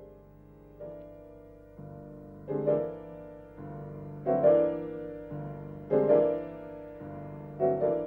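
Classical chamber music from a piano trio: piano chords struck about once a second, each fading away, with the violin playing.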